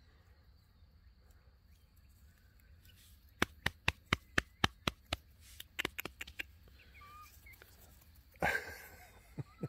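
A hen pecking close to the microphone: a run of sharp taps, about four a second for some three seconds. A few soft chicken chirps follow, then a brief rustle near the end.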